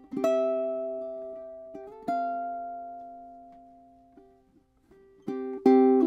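All-koa aNueNue Whale Koa Bird ukulele played fingerstyle. A chord is plucked and left to ring, and a second chord about two seconds later fades almost to nothing. Near the end, new plucked notes and a louder chord come in.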